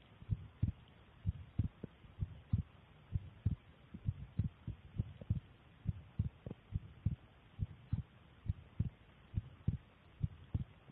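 A woman's heart beating at rest, a regular run of low double thumps (lub-dub), picked up by a phone's microphone.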